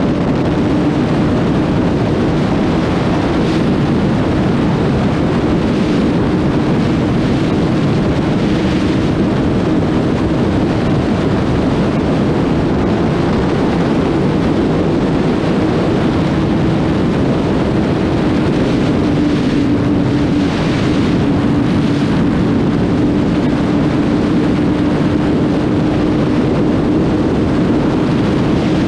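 Kawasaki ZX-6R 636's inline-four engine running at a steady speed under way, its even engine note mixed with wind and road noise on the helmet-side or bike-mounted action camera.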